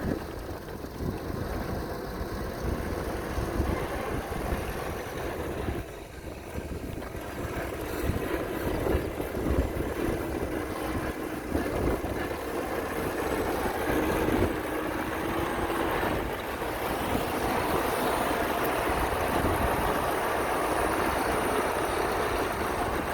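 Heavy construction-machine diesel engine running, getting somewhat louder in the second half.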